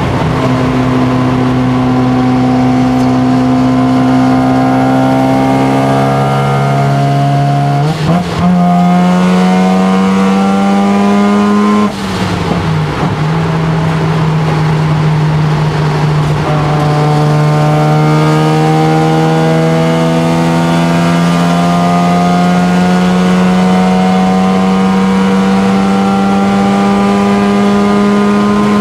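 Mazda RX-7 FD3S's single-turbo 13B rotary engine pulling hard at speed, heard from inside the cabin. Its pitch climbs slowly. There are two gear changes, about eight and twelve seconds in, and after the second the engine climbs again in one long pull.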